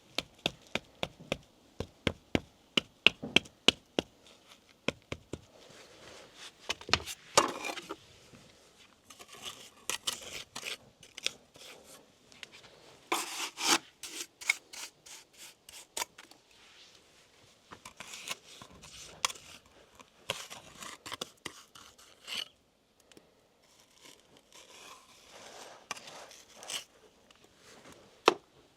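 Masonry work with lime mortar on a stone wall. It opens with a run of sharp taps, about two a second, then moves to scattered scraping and rubbing of a trowel against mortar and stone.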